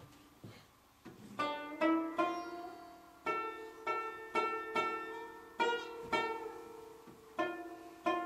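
Music on a plucked string instrument: a slow melody of single plucked notes, each ringing out and fading, picking up again after a brief pause about a second in.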